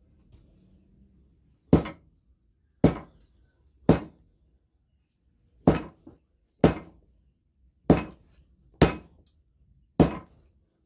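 Sledgehammer blows on glowing hot steel from a breaker chisel bit, laid on a small anvil, as a blade is hand-forged. Eight heavy strikes start nearly two seconds in, roughly a second apart with one longer pause in the middle, most of them with a brief high ring.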